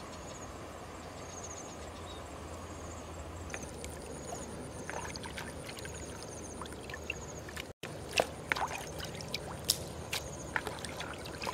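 Water splashing and dripping as raw squid are rinsed by hand in a bowl of water and lifted into a plastic colander. The first few seconds hold only a steady background hiss; the splashes start a few seconds in and get sharper and louder after about eight seconds.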